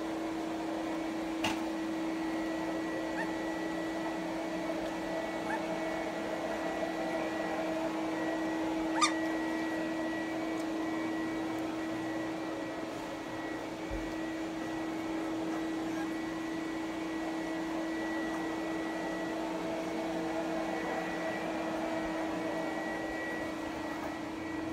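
Steady machine hum, like a small fan or heater running, with a sharp click a second and a half in and a louder click about nine seconds in.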